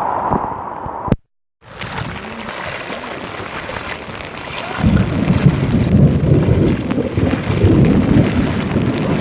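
Heavy rain falling steadily, broken by a click and a brief dropout about a second in. From about five seconds in, loud gusty wind buffets the microphone over the rain.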